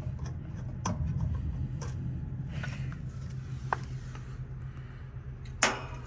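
Light metallic clicks from handling a brass Schrader valve-core removal tool, with a sharper tap near the end as a small part is set down on the metal top of the air-conditioner condensing unit. A steady low hum runs underneath.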